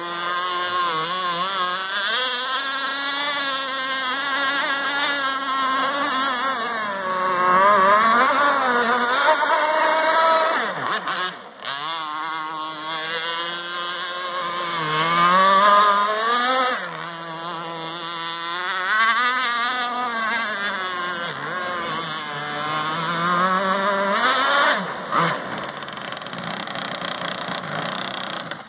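Radio-controlled catamaran's motor running at speed, its pitch rising and falling again and again as the throttle is worked through turns, with a brief drop in level about eleven seconds in.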